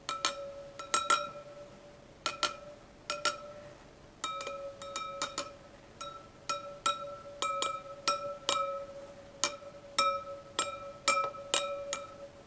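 A screwdriver tapping spokes of a Harley-Davidson Pan America's spoked rear wheel one after another, about two dozen sharp taps, most ringing briefly at much the same pitch. This is the tap test for spoke tension: a clear ring means a spoke is tight, a dull note marks one to check with a torque wrench.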